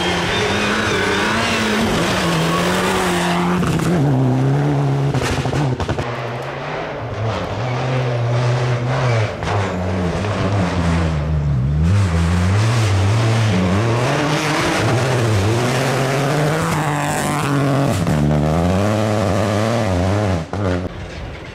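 Rally car engine on a gravel stage, revving hard and falling away again and again as the car is driven flat out through the corners, its pitch rising and dropping many times. It falls off suddenly near the end.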